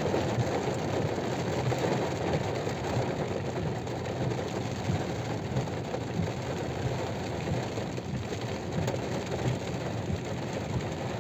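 Heavy rain drumming steadily on a car's body, heard from inside the cabin, over the car's own running noise.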